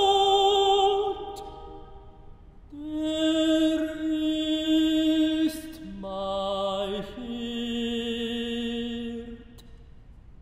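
Tenor singing a slow phrase of long held notes with vibrato. A high held note breaks off about a second in, then after a pause come three more long notes, falling and then rising a little, and the voice stops about a second before the end.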